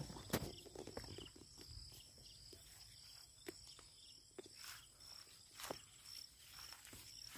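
A high insect chirp repeating in short, even pulses, over scattered knocks and rustles of someone moving and handling things in grass, loudest in the first half-second.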